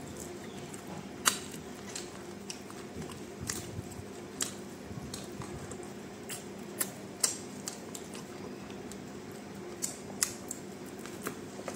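A person chewing chicken fingers close to the microphone: scattered sharp crunches and mouth clicks at irregular intervals over a faint steady hum.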